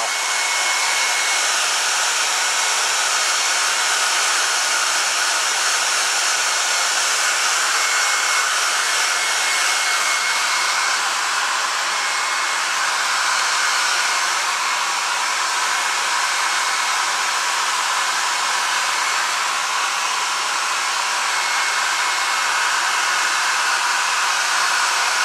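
Handheld electric hair dryer blowing steadily with a faint high whine, drying the fur of a freshly mounted squirrel so the hair sets in place.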